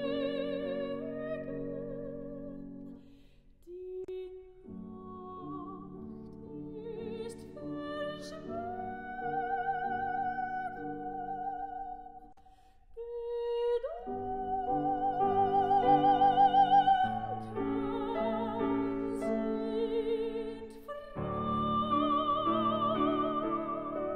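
A soprano sings a German art song with vibrato, accompanied by piano. Her phrases break off briefly twice, and the loudest moment is a long held high note past the middle.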